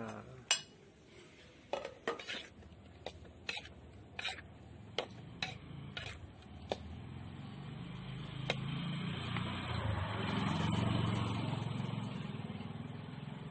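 Metal spatula knocking and scraping in a wok as fried salted fish is stirred into a sautéed tomato and chilli spice paste, with sharp clicks over the first half. The food sizzles, swelling louder in the second half.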